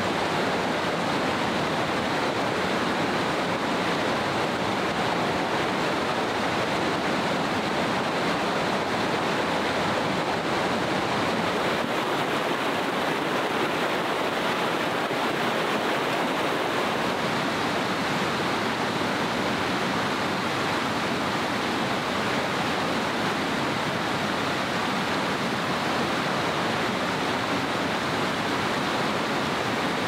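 Rushing mountain water, a steady, even rush with no breaks.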